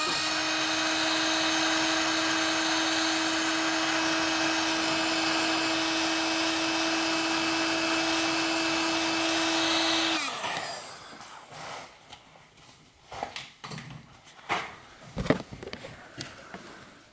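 Hot air gun running, shrinking heat-shrink tubing over soldered wire joints: a steady fan whine over a rush of air. About ten seconds in it cuts off and the whine falls away as the fan winds down, leaving only a few faint handling sounds.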